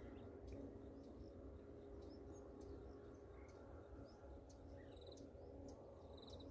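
Faint outdoor field ambience: small birds chirping in the distance, with scattered short high chirps and a couple of quick trills, over a low steady rumble.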